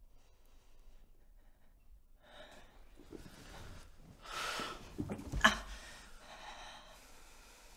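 A man's heavy breathing, with a loud gasping breath about four seconds in, then a single sharp thump about a second later, followed by more breathing.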